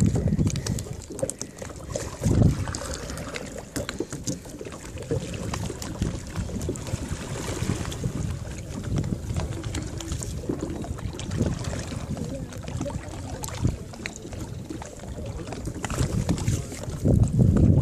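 Wind rumbling on the microphone over small splashes and drips of water around a plastic sit-on-top kayak, with scattered light clicks; the rumble swells briefly a couple of seconds in and grows louder near the end.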